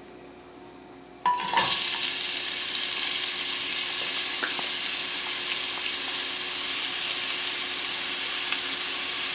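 Chopped red onions hitting hot oil in a pressure cooker, setting off a sudden steady sizzle about a second in that keeps on frying.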